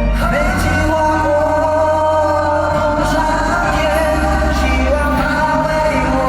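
Live pop ballad played by a band with singing, a long held note over the accompaniment.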